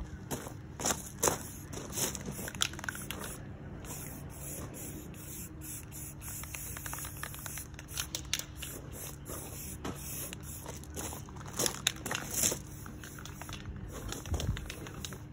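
Aerosol spray-paint can hissing in a series of short bursts.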